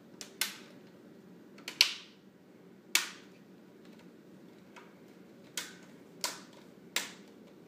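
Plastic screen-bezel clips of a Samsung NP550P5C laptop snapping into place one by one as the bezel is pressed back onto the lid, about seven sharp clicks at irregular intervals.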